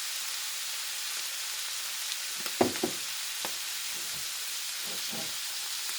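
Food frying in a cast-iron pan, a steady sizzle. A few light knocks come through it about halfway in.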